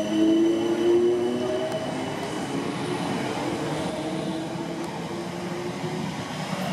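South West Trains electric multiple-unit train passing close by at speed. A whine fades after about two seconds, leaving the steady rumble of wheels on rail, which gradually grows quieter.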